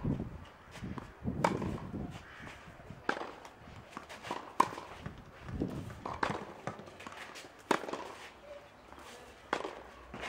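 Tennis balls struck by rackets and bouncing during a baseline rally: about seven sharp pops, roughly one every one and a half seconds, with softer shoe scuffs on the clay court between them.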